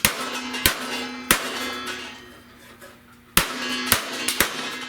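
A hammer strikes a steel radiator support panel to flatten it. There are two quick groups of three blows, and each blow leaves the sheet metal ringing for a moment.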